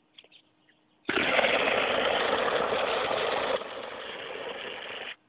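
Fire extinguisher discharging: a loud steady hiss starts suddenly about a second in, weakens somewhat partway through, and cuts off abruptly near the end. A few faint clicks come before it.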